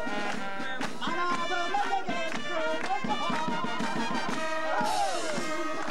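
Outdoor brass band playing a tune with horns and a steady bass-drum beat, with crowd voices underneath.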